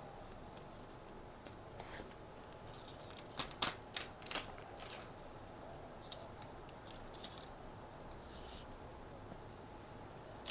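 Close-miked eating sounds of fried snack food: a cluster of crisp crackling clicks about three and a half to five seconds in, with a few scattered clicks later, over faint room noise.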